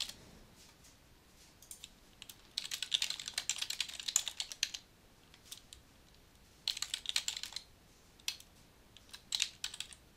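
Typing on a computer keyboard in three short runs of rapid keystrokes, with a few single clicks in the pauses between them.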